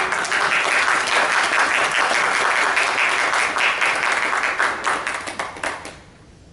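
Congregation applauding, the clapping dense at first and dying away near the end.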